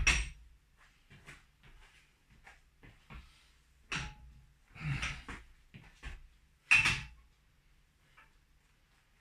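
Irregular knocks and thumps of gym gear being handled and moved, one at the start and a cluster from about four to seven seconds in, the last the loudest.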